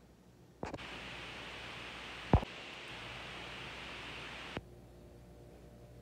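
A steady hiss that switches on and cuts off abruptly, lasting about four seconds, with one sharp thump about two seconds in.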